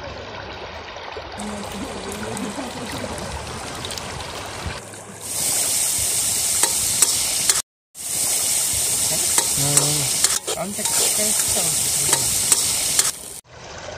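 Tomatoes and then meat sizzling in oil in a karahi over a wood fire, with a metal ladle scraping and clicking against the pan as it is stirred. The sizzle comes in loud about five seconds in, drops out briefly, then resumes until near the end.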